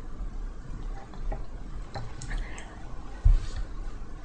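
Low room noise with a few faint clicks and one dull low thump a little past three seconds in.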